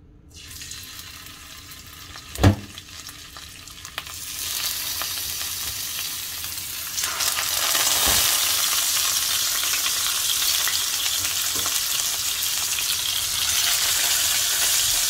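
Pieces of marinated rohu fish sizzling in hot soybean oil in a frying pan. The sizzle steps up louder about four and seven seconds in as more pieces go in, then holds steady. A single sharp knock sounds about two and a half seconds in.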